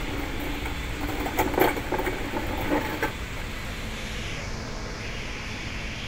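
Steady low rumble of the crane's engine running, with a short run of knocks and rattles about a second and a half in.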